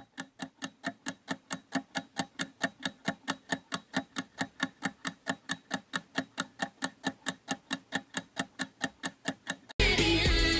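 Steady, even ticking, about four to five ticks a second, with loud pop music cutting back in near the end.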